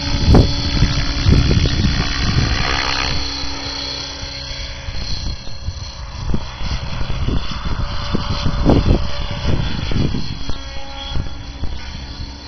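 Align T-Rex 700E electric RC helicopter flying: a steady whir of the rotor and motor with gusty low rumbling. It is loudest for the first few seconds, then grows fainter as the helicopter climbs away.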